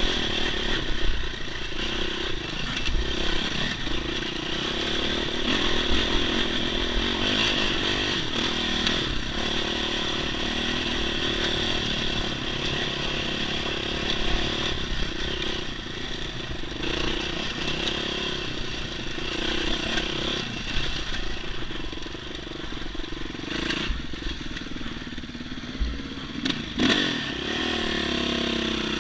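Yamaha dirt bike engine running under load on a rocky climb, its pitch rising and falling with the throttle, with rocks clattering and scraping under the tyres. A couple of sharp knocks come near the end.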